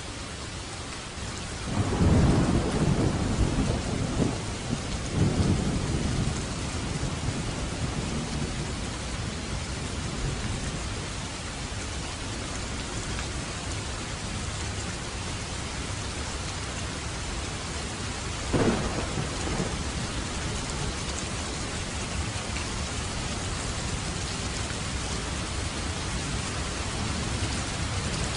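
Steady heavy rain hissing, with a long roll of thunder swelling in twice about two seconds in, and a shorter, sharper thunderclap about two-thirds of the way through.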